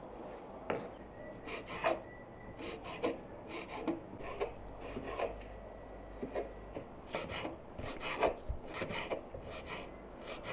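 A knife cutting bell peppers on a cutting board: irregular slicing strokes, about two a second, coming quicker in the second half.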